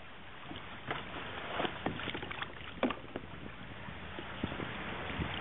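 Water splashing and lapping around a capsized kayak, with a cluster of short splashes and knocks against the hull from about one to three seconds in.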